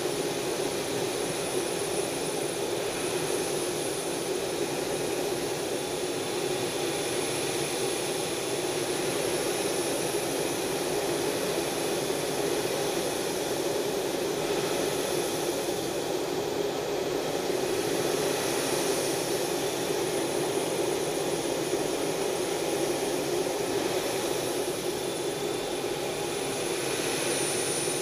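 Steady drone of a jet aircraft in cruise, heard from inside the cabin: engine and airflow noise with a strong low hum, unchanging throughout.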